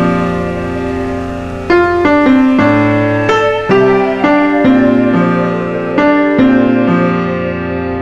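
Background piano music: slow chords struck every second or so, each left to ring and fade.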